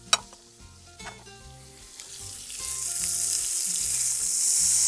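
A spoon clinks once against a metal bowl, then duck breast fat starts sizzling in a hot frying pan, the hiss swelling from about halfway and staying loud to the end.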